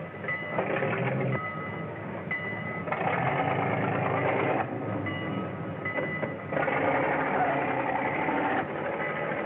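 Vintage open touring car's engine running and pulling away, a rapid mechanical clatter over the hiss of an old film soundtrack, its loudness jumping up and down several times.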